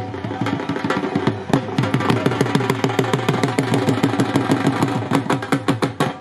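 A drum beaten in a fast, steady rhythm of about seven strokes a second, quickening near the end, over a steady held drone, in traditional folk music.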